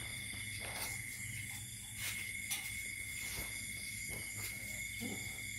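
Sleeping puppies making faint snuffles and small whimpers, over a steady high-pitched background whine and low hum.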